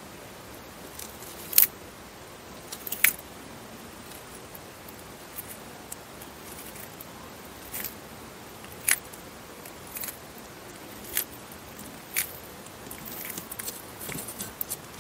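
Eastern Hermann's tortoise biting and tearing crisp leafy greens: about ten sharp crunching snaps, a second or more apart, with a quicker run of smaller bites near the end.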